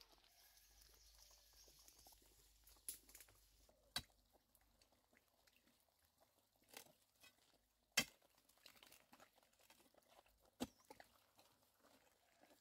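Near quiet broken by about five sharp knocks and crunches from hand work on dry, leaf-littered garden ground, the loudest about eight seconds in.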